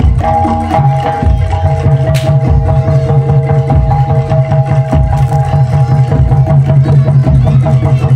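Loud live music from a Javanese bantengan/jaranan ensemble: frequent drum strokes over steady held melody tones and a constant low drone.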